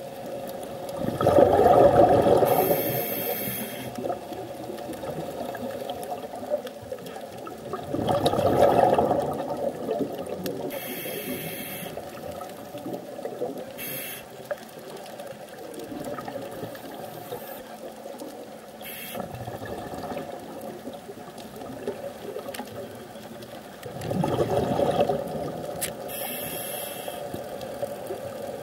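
Scuba diver breathing through a regulator underwater: three loud bursts of gurgling exhaled bubbles, with shorter high hisses between them, over a steady hum.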